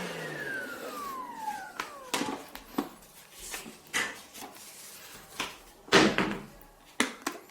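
Bosch UniversalVac 18 cordless vacuum motor winding down after switch-off, a falling whine that fades over about two seconds. It is followed by a scattered series of sharp clicks and knocks, the loudest about six seconds in.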